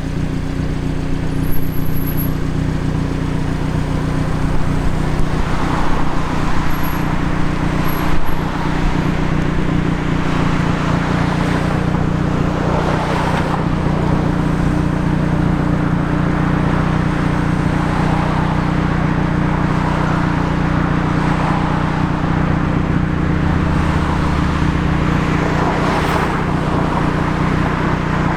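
Hyundai i30N's turbocharged 2.0-litre four-cylinder engine idling steadily, a constant low drone over the general outdoor noise of a car meet.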